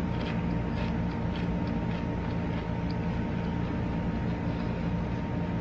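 A steady mechanical hum with a few fixed tones, holding at one level throughout.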